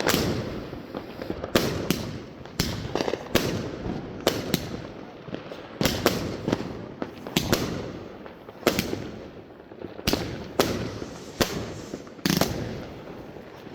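New Year's Eve fireworks going off: loud, sharp bangs about once a second, each trailing off in an echoing rumble, over steady crackling.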